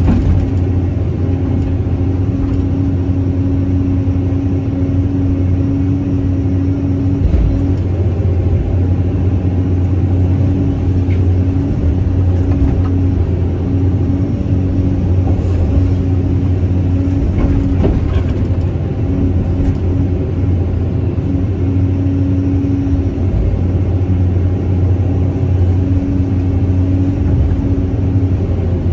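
Caterpillar 320C hydraulic excavator's diesel engine running steadily under working load while it digs soil and dumps it into a truck. A strong low hum holds throughout, with a higher steady tone that drops out and comes back several times.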